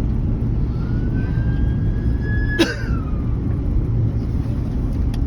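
Steady low rumble inside a vehicle in a hailstorm, with one sharp hailstone strike on the car's body or glass about halfway through that rings briefly. A faint whistle rises in pitch just before the strike.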